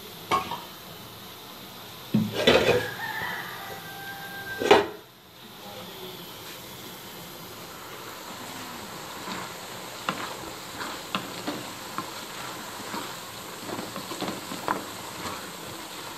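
A pot of saag (mustard and other greens) cooking down on a gas stove while being stirred with a spoon: a steady sizzling hiss with scattered small pops and scrapes. Between about two and five seconds in, a few loud knocks of the pot or dishes, one ringing briefly.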